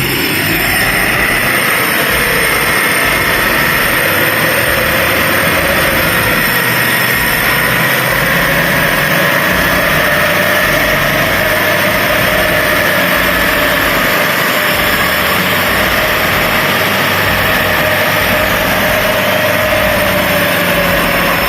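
An off-road vehicle's engine running at steady revs, its pitch drifting slowly up and down.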